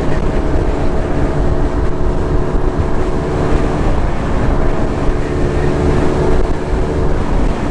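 Motorcycle engine running at a steady pitch while the bike is ridden along the road.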